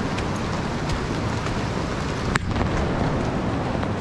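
A steady rushing hiss of water, with scattered light taps and one sharp knock about two and a half seconds in.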